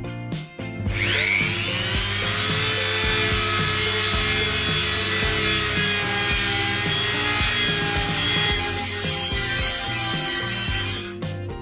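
Handheld rotary tool spinning up with a rising whine about a second in, then running steadily as its bit cuts into a rosewood cabinet door, cutting off just before the end. Background music with a steady beat plays underneath.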